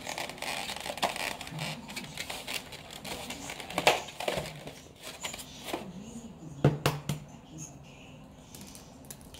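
Egg carton being handled: the lid opened and eggs taken out, with crinkling and a run of sharp clicks and knocks, the loudest about four seconds in and again just before seven seconds.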